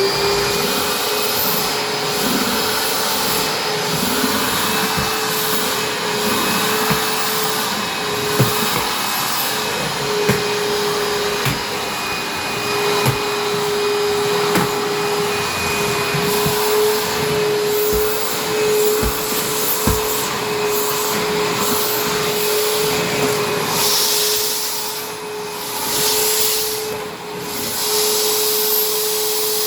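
Vacuum cleaner running steadily as it vacuums a kitchen floor, its motor holding one steady whine under the rush of suction, with a few short knocks along the way. The sound swells and dips near the end.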